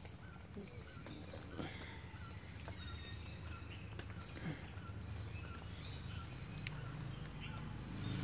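Forest insect and bird chorus: a steady high-pitched insect drone, with short chirping calls repeating two or three times a second.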